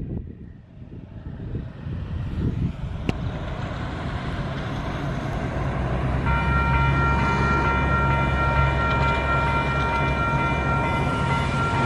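Approaching KiwiRail DX-class diesel-electric locomotive: a low engine rumble growing steadily louder. About six seconds in, a steady high chord of several tones joins and holds.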